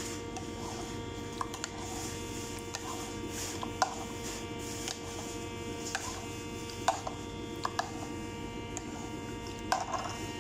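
Metal spoon stirring coconut milk in a small ceramic bowl, clinking against the bowl several times at irregular moments. A steady electrical hum runs underneath.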